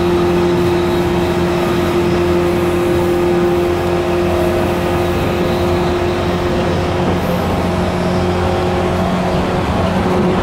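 MT54 traction motors of a 185 series electric train growling at a steady pitch as the train runs at speed, over the rumble of wheels on rail, heard from inside the motor car.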